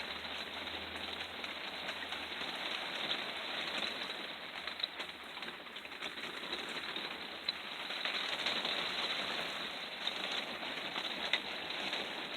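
Rain falling steadily on a motorhome, a dense even hiss with scattered louder drops.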